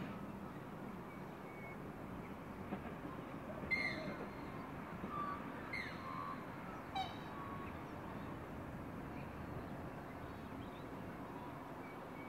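Low steady rumble of a distant Endeavour diesel railcar running along the line, with short bird calls at about four, six and seven seconds in, the first the loudest.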